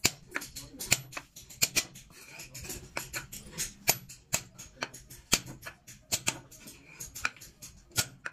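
Wooden mallet striking a small steel chisel held upright on a wooden board: a quick, irregular run of sharp taps, about three a second, as the chisel is driven along a carved outline.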